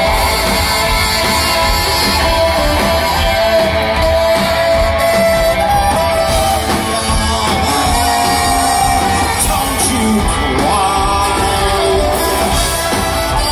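Live rock band playing loud through the PA, heard from the crowd: electric guitar, drums and saxophone, with long held notes over a steady full band.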